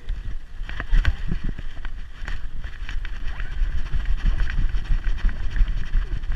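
Handling noise from a GoPro strapped to a Staffordshire bull terrier's back as she moves: a jostling low rumble with irregular knocks and clicks from the camera mount.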